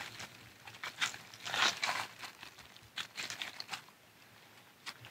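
Dry forest leaf litter crunching and rustling in several irregular bursts, with quiet gaps between them.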